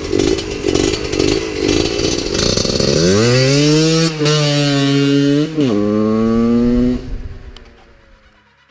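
Husqvarna 125 SMS two-stroke supermoto with an FMF exhaust, revved in quick blips, then accelerating with its engine note climbing and dipping twice at the gear changes. The sound dies away near the end.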